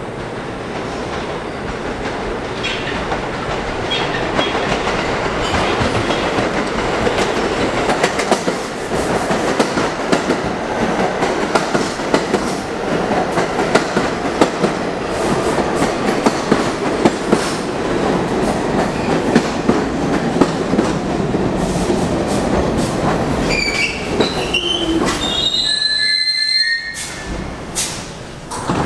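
NYC Subway Q train running into the station and braking to a stop. The rumble builds, with a steady run of wheel clicks over the rail joints, then high wheel and brake squeal that rises and falls in pitch. The noise cuts off suddenly as the train halts, a few seconds before the end.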